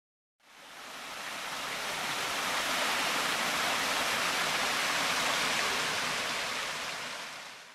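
Waterfall pouring over a rock ledge into a creek: a steady rush of falling water that fades in about half a second in and fades out at the end.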